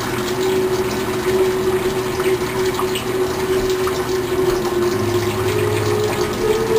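Water running steadily from a tap, with a steady hum underneath that steps up slightly in pitch near the end.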